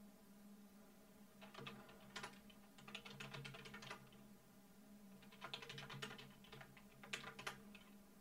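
Computer keyboard typing, faint: two short bursts of keystrokes, the first about a second and a half in and the second about five and a half seconds in, over a low steady hum.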